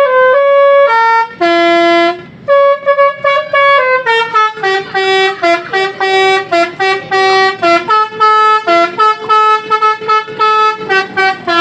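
Telolet musical horn of the basuri type playing a melody. The tune steps between pitched notes, a few of them held, then quickens after about four seconds into a run of short, rapidly changing notes.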